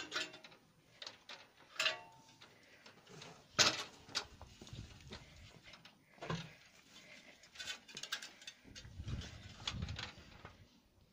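Irregular knocks, clanks and scrapes of things being shifted aside and a ladder being set up and climbed, the loudest knock about three and a half seconds in, with duller thuds near the end.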